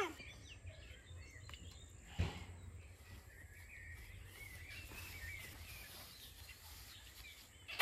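Quiet garden ambience: faint bird chirps over a steady low rumble, with a single thump about two seconds in.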